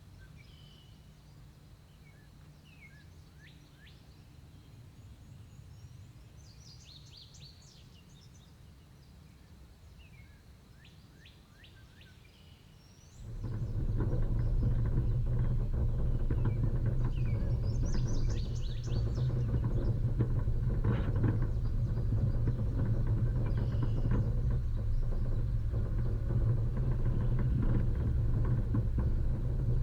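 Birds chirping over a low steady rumble, then about thirteen seconds in an off-road vehicle's engine comes in abruptly and loudly and keeps running steadily.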